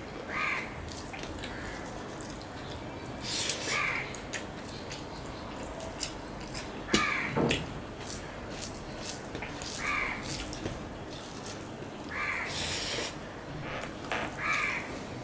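Crows cawing outside, one short harsh caw every two to three seconds, over close, wet eating sounds: a hand mixing rice with mashed greens, chewing and lip smacks.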